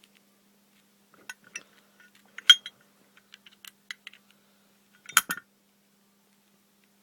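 Small metal clicks and clinks as a Zippo lighter insert is handled and its flint-spring screw is screwed back in, with two sharper clinks about two and a half and five seconds in.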